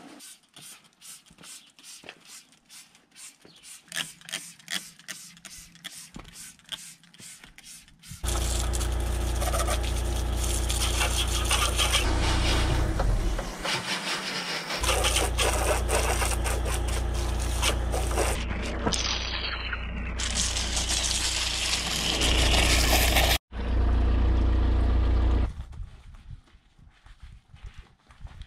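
A hand trigger spray bottle squirting cleaner onto the motorcycle in quick strokes. Then a pressure washer runs, its jet hissing over a steady low motor hum, before it stops near the end.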